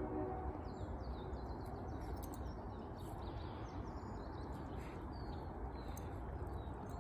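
Small birds chirping now and then, in short high calls, over a steady low background rumble.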